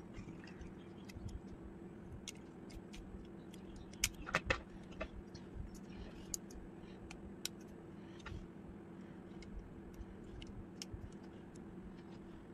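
Lego bricks clicking and rattling as the parts of a brick-built triceratops are handled and its head section is pressed onto the body, with a cluster of louder plastic snaps about four seconds in. A steady low hum runs underneath.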